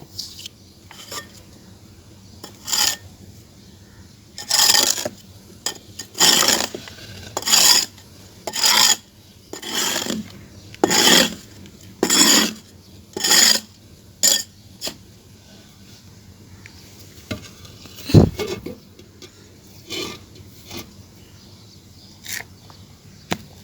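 Gritty clay being scraped in a run of scraping strokes about a second apart, lasting about ten seconds, followed by a few scattered lighter scrapes and a single sharp knock.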